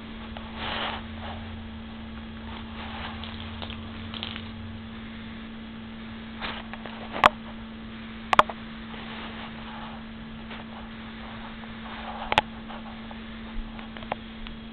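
Faint rustling and pattering of a cat batting and chasing a small toy on carpet, over a steady low electrical hum. A few sharp clicks stand out: one about seven seconds in, a quick double click a second later, and another near the end.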